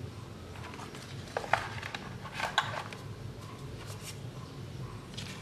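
Faint handling noises from a cardboard phone box and its paper booklet and cards being moved: a few soft taps and rustles in two small clusters, about one and a half and two and a half seconds in.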